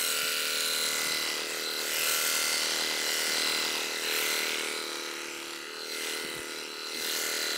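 Electric sheep-shearing handpiece running steadily as its cutter moves through the wool, with a steady buzz that dips slightly in pitch about two-thirds of the way through.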